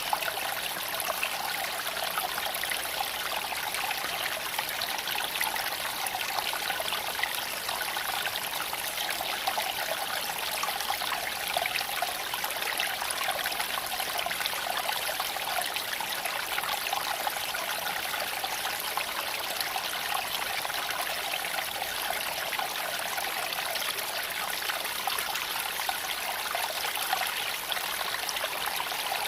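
Shallow creek water flowing and babbling over stones: a steady, even rush with fine irregular splashes throughout.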